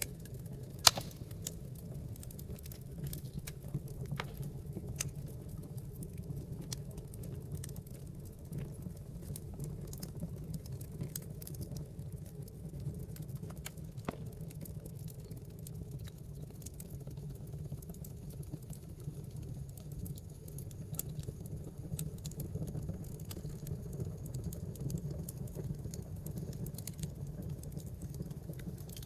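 Wood fire burning in a fireplace: a steady low rumble of flames under constant scattered crackles, with one sharp, loud pop about a second in.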